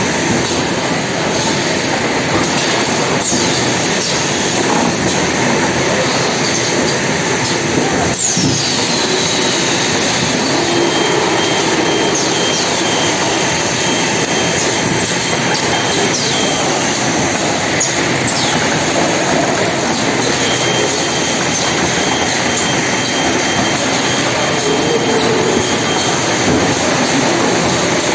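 Automatic packaging line machinery running steadily. A few short, high, falling squeals come through, and in two spells a faint high beep repeats about twice a second.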